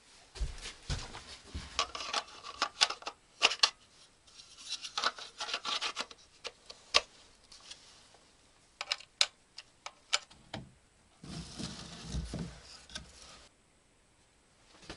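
Hands handling small gear: rubbing and rustling with many sharp irregular clicks and knocks, and a longer rustle with low thuds near the end.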